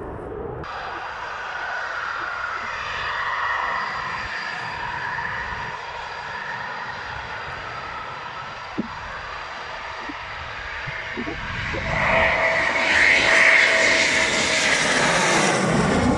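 Eurofighter Typhoon's twin EJ200 turbofan engines whining as the jet comes in on approach with its gear down. The sound grows much louder about twelve seconds in as it passes low overhead.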